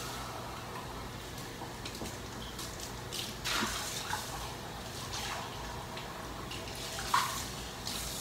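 Water running from a kitchen tap, a steady hiss, with a few faint knocks and clinks, over a steady low hum.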